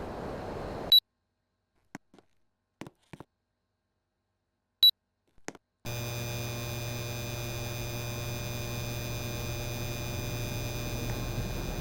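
Samsung split air conditioner beeping twice, a short high beep about a second in and another about five seconds in, with silence and a few faint clicks between. Running noise stops at the first beep, and about a second after the second beep the unit starts running again with a steady hum carrying several steady tones.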